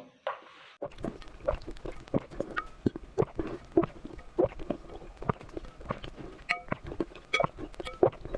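Close-miked mukbang eating sounds from someone eating raw eggs: a dense, irregular run of wet mouth clicks, smacks and gulps starting about a second in.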